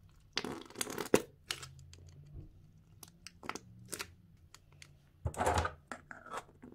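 Goooze Candy Flossaccino slime, a glossy pink slime with small blue beads, squeezed and pressed by fingers in its plastic cup: irregular crackling, popping squishes with a crunch from the beads, the loudest burst about five seconds in.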